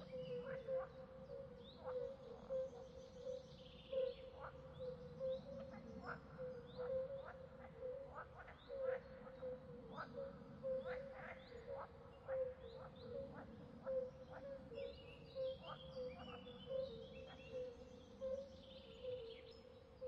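Swamp ambience: a steady chorus of calling frogs, with birds chirping and twittering in bursts over it.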